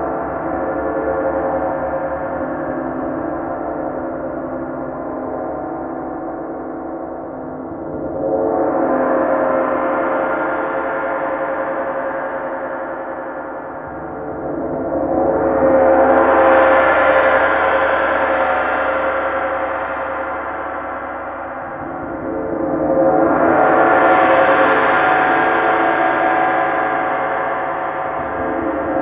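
Large bronze gong played with soft mallets in a continuous rolling build, ringing with dense overtones. The wash swells three times, about eight, fifteen and twenty-three seconds in. Each swell grows louder and brighter over a couple of seconds, then slowly ebbs.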